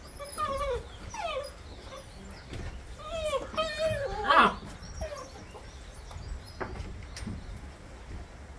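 Bernese Mountain Dog puppies whining and whimpering in short, high calls that rise and fall in pitch. The loudest comes a little past the middle, and the calls die away after it.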